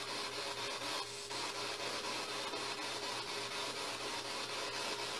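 Steady hiss of static with a faint low hum underneath, dipping briefly about a second in.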